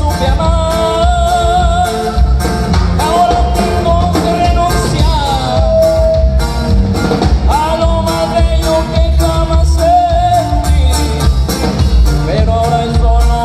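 Live norteño band music: accordion melody over guitar, electric bass and a drum kit keeping a steady beat.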